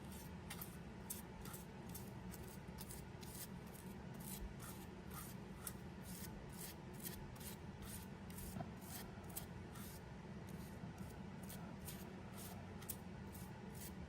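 Faint, quick rubbing strokes of an applicator working cold bluing over a steel ratchet's surface, about two to three strokes a second, each a short scratchy swish.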